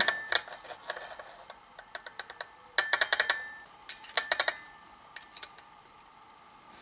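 Metal tools and small engine parts clinking and clicking as they are handled, in several short bunches of sharp clicks that thin out in the last second or two.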